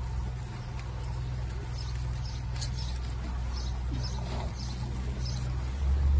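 Canal tour boat's motor running with a steady low drone that grows louder near the end, with short high chirps of small birds over it.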